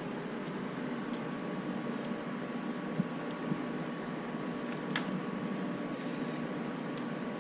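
A steady mechanical hum with a faint thin whine, and a few light clicks about three and five seconds in.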